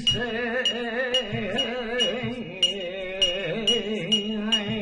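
Flamenco martinete: a man's voice sings unaccompanied, drawing one syllable out in a long wavering melisma, over a hammer striking an anvil about twice a second with a short ringing clink.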